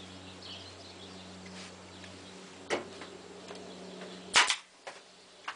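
Staple gun firing a few times into the trailer's wooden framing: scattered sharp clicks, the loudest a sharp double snap about four and a half seconds in. A low steady hum runs underneath and drops out partway through.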